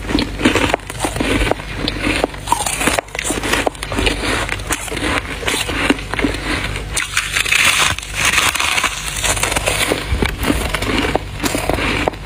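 Dense, irregular crunching and crackling of soft freezer frost being crushed.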